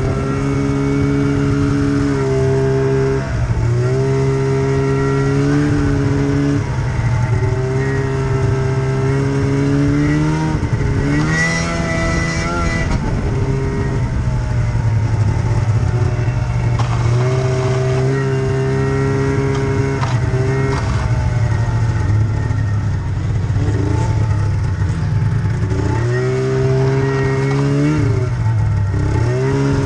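Snowmobile engine running under the rider, revving up and easing off again and again as the throttle is worked, its pitch climbing with each burst of throttle and dropping back between.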